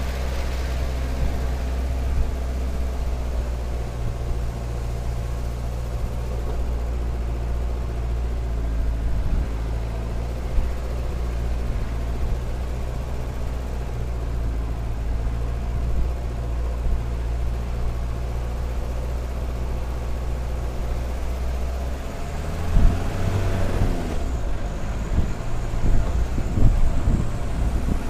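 Jeep Cherokee XJ's engine running steadily under load as it climbs a dirt track. A little before the end the engine note shifts, and irregular knocks follow as the vehicle bumps over the ruts.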